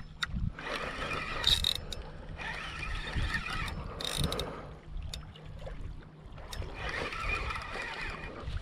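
Shimano Saragosa SW10000 spinning reel being cranked during a retrieve, its gears whirring in spells of about two seconds with short pauses between.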